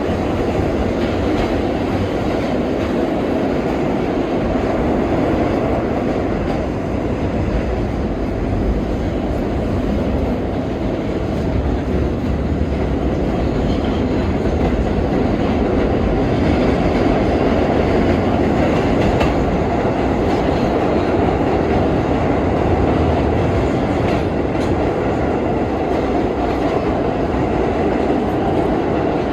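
R32 subway train running through the tunnel: a steady rumble of steel wheels on the rails.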